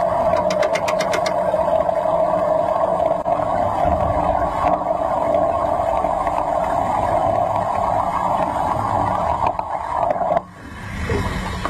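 Underwater wet-welding arc buzzing steadily as the diver runs a weld, with rapid clicks through the first second; it cuts off suddenly about ten seconds in as the arc is broken.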